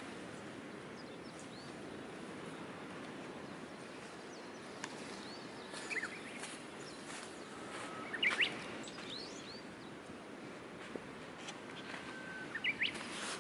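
Birds calling in short chirps, in small clusters three times, over a steady outdoor hiss with a few faint isolated clicks.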